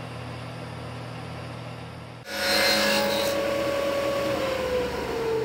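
Laguna planer running with no wood going through it, a steady hum. About two seconds in, a louder whirring with a hiss takes over, its pitch slowly falling.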